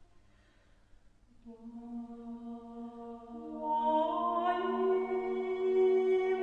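Slow ambient background music of long held notes. It fades in from near quiet after about a second and a half and swells louder about four seconds in.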